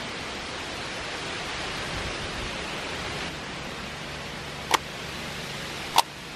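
A steady hiss of background noise, with two short sharp clicks near the end, about a second apart, from a hand stamp being pressed onto a paper logbook.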